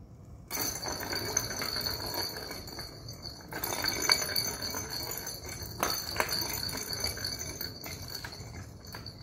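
A ball rolling around the plastic track under a round cardboard cat scratcher, jingling and rattling steadily from about half a second in. A couple of sharp knocks come about two-thirds of the way through.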